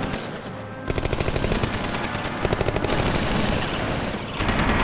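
Rapid automatic gunfire, about ten shots a second. It starts about a second in after a short lull and rises to a louder burst near the end.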